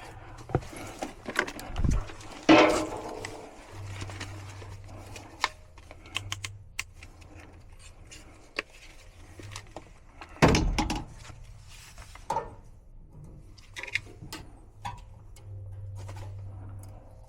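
Handling noises from working on a furnace blower's capacitor and wiring: scattered clicks, taps and rustling, with two louder knocks about two and a half seconds and ten seconds in. A faint low hum comes and goes underneath.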